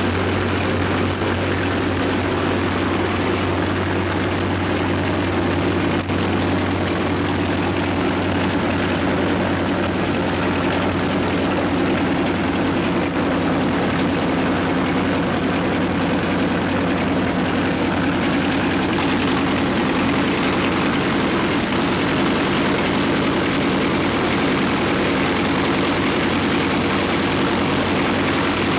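Ilyushin Il-14T's Shvetsov ASh-82T fourteen-cylinder radial piston engine running steadily on the ground, its exhaust and propeller heard from close by.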